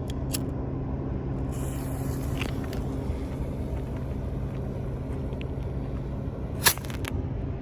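A single silver-tail bottle rocket: a brief hiss about a second and a half in, then one sharp bang about a second before the end. A steady low hum runs underneath.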